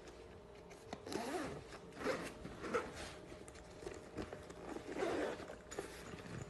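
Zipper on a fabric pouch being pulled open in several short strokes, with light handling of the pouch.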